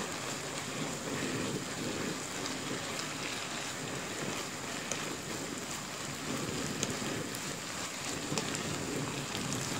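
Beef bulgogi and sliced vegetables sizzling in a frying pan while a wooden spatula stirs them: a steady frying hiss with a few faint ticks.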